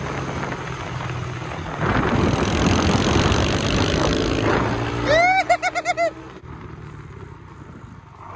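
Small Yamaha TT-R110 pit bike engine, an air-cooled four-stroke single, running on the move with heavy wind noise on the microphone. About five seconds in comes a quick run of about six high, arching chirps, and then the engine drops to a quieter idle as the bike slows.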